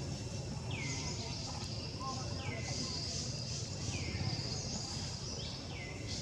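Outdoor jungle ambience: a steady high insect drone, with a short call that sweeps downward in pitch repeating about every one and a half to two seconds.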